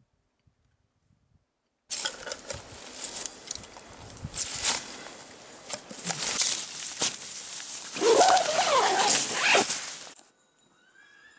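Close rustling and handling noise of clothing and gear being rummaged through, with scrapes and knocks, and a wavering squeaky sound about eight seconds in.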